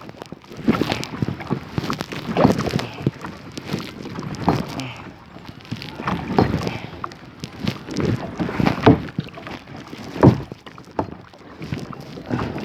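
Kayak paddle strokes splashing and dipping into the water, a strong surge of water noise every one and a half to two seconds as the paddle is worked steadily.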